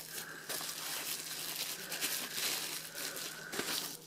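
Clear plastic bubble-wrap sleeve crinkling and rustling as it is worked off a laptop battery by hand, a steady run of small crackles.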